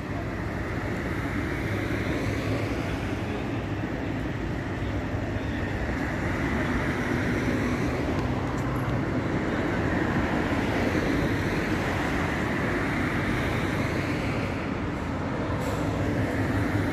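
Steady road traffic noise with a low engine hum, swelling and easing slowly as vehicles pass.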